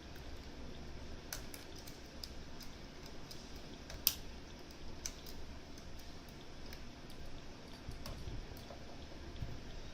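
Faint, irregular small metallic clicks and ticks of a pick working the discs of a Mosler M5700 safe deposit box lock, with one sharper click about four seconds in.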